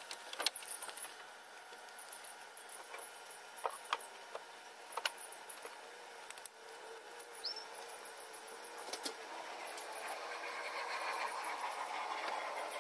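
Used engine oil from a Volvo XC90's sump running in a thin stream into a plastic drain pan, near the tail end of draining, with scattered light ticks and drips. A rushing noise swells over the second half.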